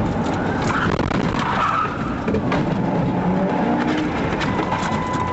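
A car driving hard, its engine running with tyres skidding on the road.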